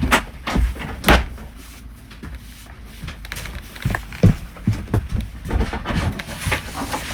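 A series of irregular knocks and thumps: two sharp, louder knocks about a second apart near the start, then a run of smaller, duller thumps and clicks.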